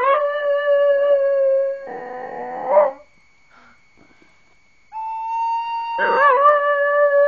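A dog howling along to a recorder. The recorder holds long steady notes; the dog's wavering howl comes in about two seconds in and again near the end, with a pause of about two seconds in the middle.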